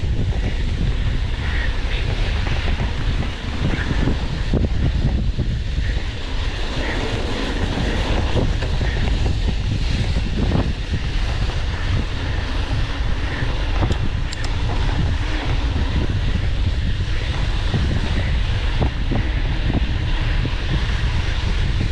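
Wind buffeting the microphone of a mountain biker's point-of-view camera while riding, a steady low rumble, mixed with the bike's tyres rolling over a wet dirt road.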